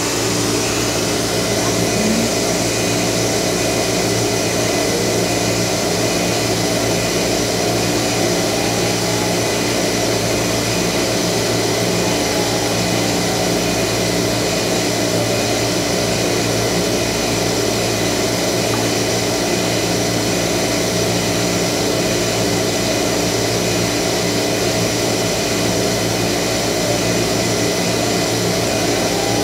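Steady mechanical hum and whir of an inductively coupled plasma etch system's vacuum pumps and cooling fans, with several steady tones held throughout and a faint whine that rises and falls a few times.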